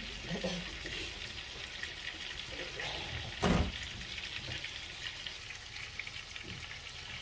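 Two beef steaks sizzling in oil in a frying pan, a steady crackle, with a single thump about three and a half seconds in.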